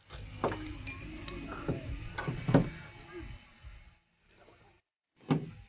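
Knocks and clicks of an aluminium telescopic ladder being handled and lifted off a roof rack. The loudest knock comes about two and a half seconds in; after a short quiet spell, another sharp knock comes near the end.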